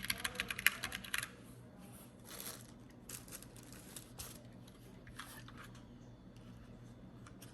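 Typing on a mechanical keyboard with Gateron brown switches: a quick run of keystrokes that stops about a second in. It is followed by a few soft rustling, scraping handling sounds.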